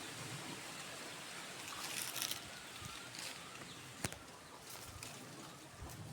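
Faint outdoor ambience: a steady hiss of wind and open air, with a brief rustle about two seconds in and a single sharp click about four seconds in.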